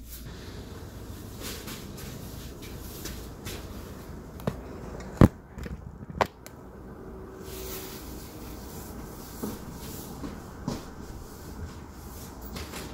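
Quiet room tone with a few sharp household clacks, three of them in quick succession around the middle, the second the loudest, and a couple of fainter ticks later on.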